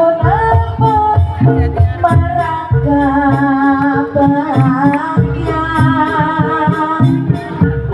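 Live jaranan (kuda lumping) music: a long, bending sung melody over steady drumming.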